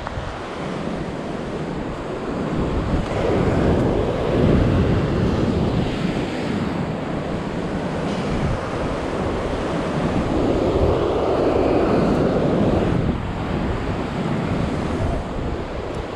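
Ocean surf washing onto rocks below, swelling twice and falling back, with wind buffeting the microphone.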